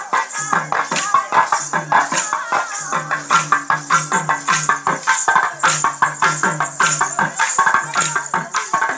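Kolatam stick dance: many dancers clacking short wooden sticks together in a fast, even rhythm, over accompanying music with a low repeating melody.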